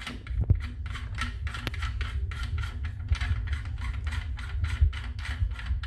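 Quick small clicks and scrapes, about five a second, of a threaded C-mount adapter being screwed by hand into a stereo microscope's trinocular port, over a low hum.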